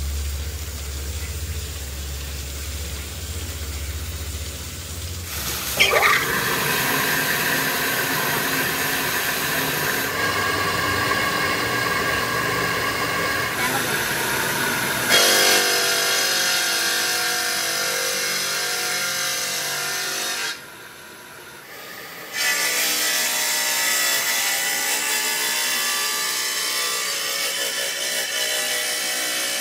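Stone block-cutting saw running, its blade grinding through a wet stone block under a water spray. The sound is a steady machine whine with several high ringing tones. It shifts abruptly a few times and drops away briefly about two-thirds of the way through.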